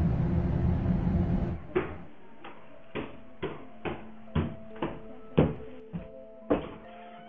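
Footsteps climbing stairs, about two steps a second, over quiet sustained background music. A steady rumbling noise fills the first second and a half and cuts off abruptly.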